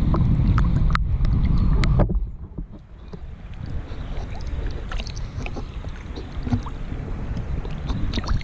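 Choppy lake water lapping and sloshing against a camera held at the surface, with small splashes and drips. A heavy low rumble on the microphone drops away about two seconds in, leaving quieter, uneven lapping.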